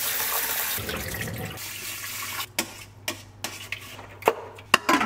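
Tap water running into a rice cooker's inner pot of rice for about two and a half seconds, then stops. After it, a string of short clicks and knocks as the cooker is handled.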